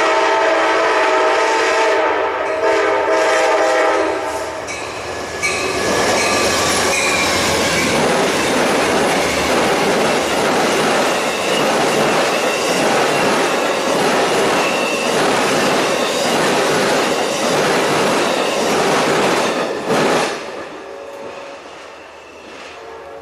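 Amtrak Silver Meteor passenger train sounding its horn in a chord for about four seconds as it nears. It then passes at speed, its wheels clacking rhythmically over the rail joints, and the noise drops away about twenty seconds in as the train goes by.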